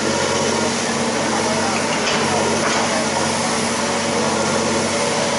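Excavator's diesel engine running steadily, with a constant low hum under a dense mechanical noise.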